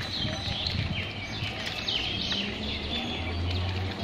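Birds chirping with many quick, sweeping calls, over a low, steady hum from an electric multiple-unit local train approaching slowly; the hum grows a little stronger in the second half.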